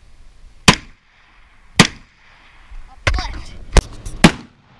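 Five gunshots, each cracking sharply and trailing off with a short echo. The first two come about a second apart; the last three follow within about a second and a half, the final two in quick succession.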